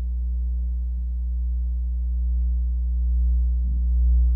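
Lafayette magnetic tape eraser, used as a watch demagnetizer, switched on and giving a loud, steady, low electrical hum with a row of overtones, as its field demagnetizes the watch movement. The hum swells slightly near the end as the eraser is lifted away from the watch.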